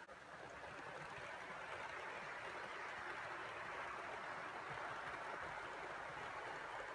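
Hornby OO gauge HST model train running along sectional track, its wheels and motor making a steady whirring rumble.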